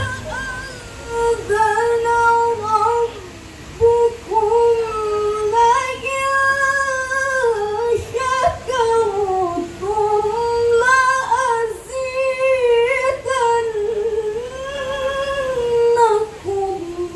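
A woman reciting the Quran in the melodic tilawah style, with long, ornamented held phrases in a high voice and short breaths between them.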